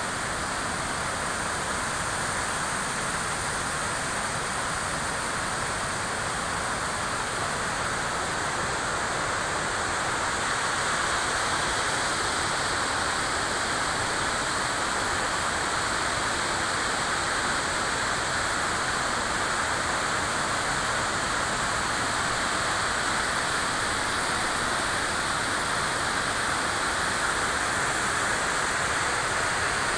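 River water flowing: a steady rushing noise with no breaks, slightly louder from about ten seconds in.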